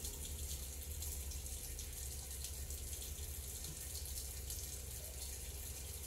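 Kitchen sink faucet running a thin, steady stream of water into the sink, over a steady low rumble.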